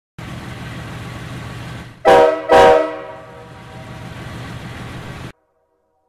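Ex-Norfolk Southern Nathan Airchime K5H five-chime locomotive horn giving two short, loud chord blasts about half a second apart, with the engine-driven air compressor running steadily underneath. The running sound cuts off suddenly about five seconds in.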